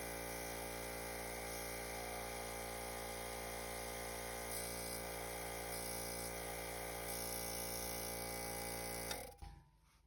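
Electric air compressor running steadily, with air hissing out of its unloader (bleeder) valve. The valve is stuck open by a bent spring, so the compressor makes no pressure. The sound stops abruptly about nine seconds in.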